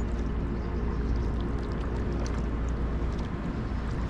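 Water splashing and trickling around a canoe moving on a river, with a few small drips or ticks over a steady low rumble.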